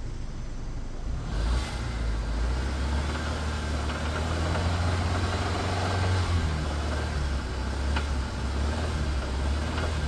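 Honda Civic four-cylinder engine running in place with rod knock: a smacking knock from a worn connecting-rod bearing over the engine note. The engine gets louder about a second in.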